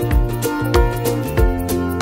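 Instrumental background music with a steady beat, about three beats every two seconds, over sustained notes.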